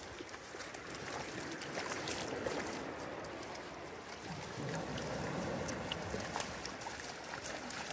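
Shallow surf washing in over wet sand with foam fizzing, and the splashing and scraping of a dog digging with its front paws in the waterlogged sand.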